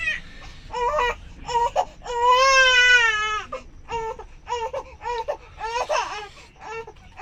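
A young child crying: a string of short, high-pitched sobbing cries, with one long wavering wail about two seconds in.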